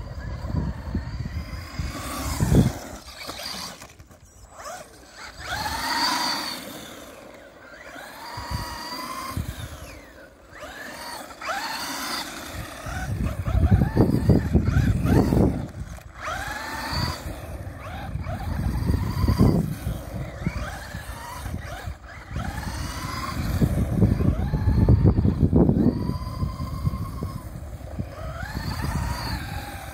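FTX Outlaw RC buggy's electric motor whining up and down in pitch again and again as the buggy accelerates, brakes and turns. A low rumble swells and fades at times.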